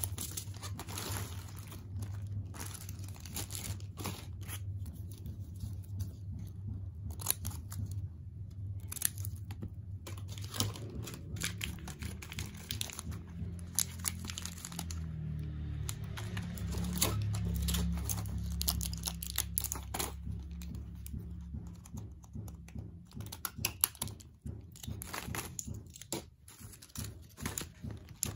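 Clear plastic bags and foil blister packs of tablets crinkling and rustling in the hands as they are handled and sorted, in many irregular crackles. A low steady hum runs underneath, louder in the middle.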